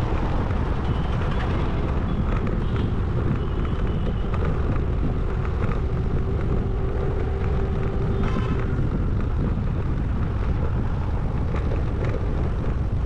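Wind buffeting a microphone on a moving scooter, with steady road and engine noise heavy at the low end.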